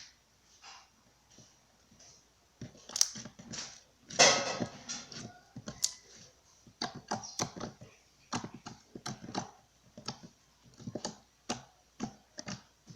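Slime being squished and kneaded, making irregular sticky clicks and pops, with a denser squelching stretch about four seconds in.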